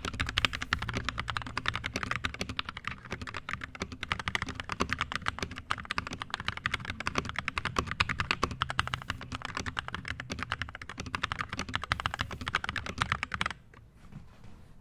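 Fast, continuous typing on a Tecware B68 65% mechanical keyboard with stock JWICK Red linear switches (60 g springs) and a foam dampener under the PCB: a dense run of keystroke clacks that stops abruptly near the end.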